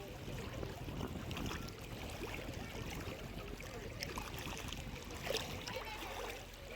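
Shallow North Sea water washing and lapping at the shore in a steady wash.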